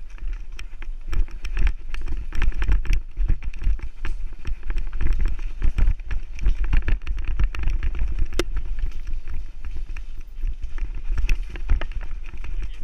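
Mountain bike riding fast down a dirt singletrack, its frame and parts rattling and clattering irregularly over roots and bumps, with a steady low wind rumble on the microphone.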